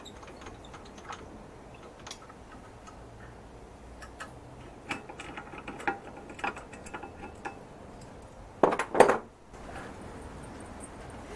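Metal parts and tools being handled on a workbench: scattered light clinks and taps, with two louder knocks close together about three-quarters of the way through.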